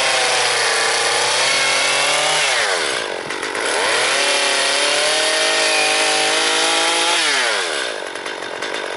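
Chainsaw cutting into a wooden log: the engine revs up and runs at high speed for about two and a half seconds, drops back, revs up again for about three seconds and drops back near the end.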